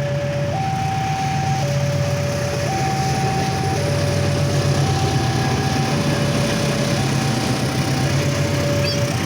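A two-tone electronic alarm switching between a high and a low note about every second, over the steady low rumble of an idling diesel locomotive engine.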